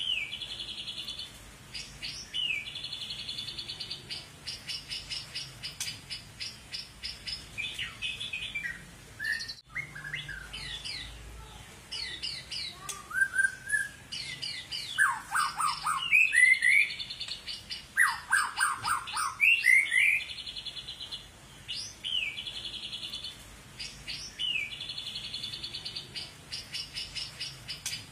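White-rumped shama (long-tailed Medan murai batu) singing: long, high, rapid trills of fast repeated notes. In the middle, louder and lower whistled phrases slide downward before the high trills return.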